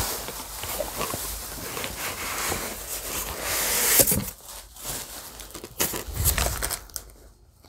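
Cardboard and paper packaging rustling and crinkling as a boxed collectible is unpacked by hand, with a sharp louder knock about four seconds in and scattered handling clicks after, dying down near the end.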